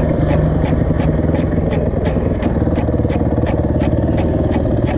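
Motorcycle engine running steadily, with a light regular ticking about three times a second over it.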